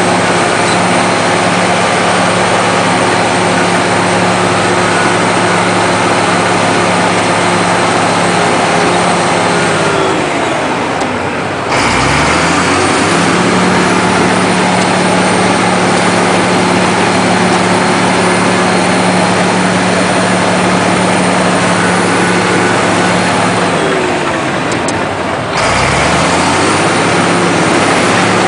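Komatsu D83 bulldozer's diesel engine running steadily. Twice its note sags, then a low thump and the engine picks back up.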